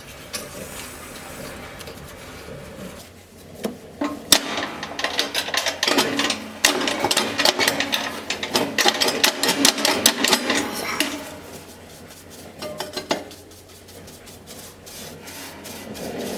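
Rasping, scraping and rubbing with many light clicks and knocks. It is heaviest from about four to eleven seconds in.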